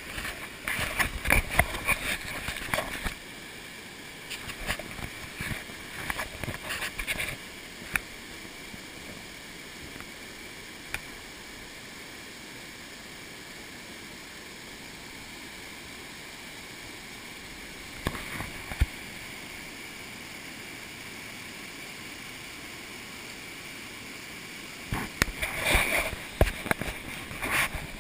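Steady rushing of whitewater pouring through a dam spillway into a rocky rapid. Rustling and knocks of the camera being handled come in the first few seconds and again near the end, with a few single clicks between.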